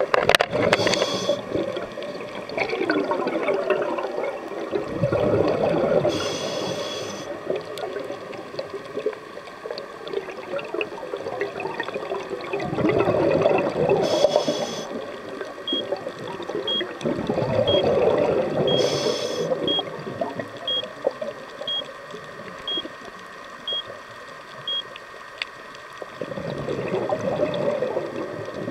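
Scuba diver breathing through a regulator underwater: a short hiss of each inhalation, then a long bubbling gurgle of the exhaled air, repeating about every five to six seconds. Faint high ticks, about one a second, run through the middle stretch.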